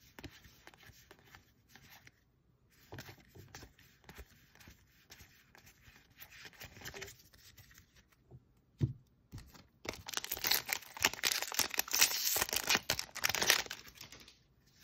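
Magic: The Gathering trading cards handled in the hands: faint rustles as cards are flipped through, then about ten seconds in a louder few seconds of dry scraping and rustling as cards slide against one another.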